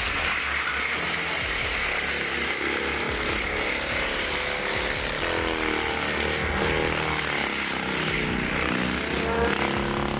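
A machine motor running steadily, its pitch rising and falling as it works under load in the second half.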